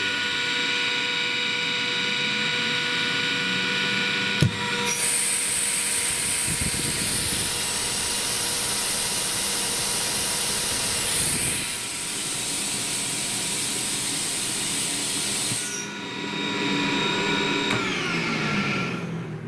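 ELGI E05en rotary screw compressor running with a steady whine. About four and a half seconds in it clicks onto load, and air blows out of the discharge, which is vented to atmosphere, as a loud hiss for about eleven seconds. The hiss then cuts off and the compressor goes back to its whine, which falls in pitch near the end.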